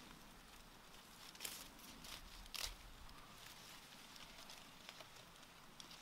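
Faint rustling of leafy plants and stems as hands work through them. Two short, crisp rustles stand out, about a second and a half in and, louder, about two and a half seconds in.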